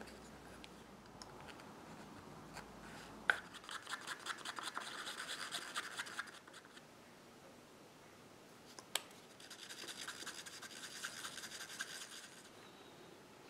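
A stick stirring acrylic paint in a small paper cup: quick scraping strokes against the cup wall in two spells of about three seconds each, each opened by a sharp click. Red and blue acrylics are being mixed into a touch-up colour.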